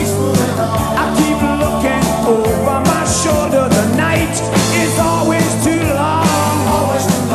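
Rock band playing at full volume, with a steady beat and bass under a wavering lead melody line.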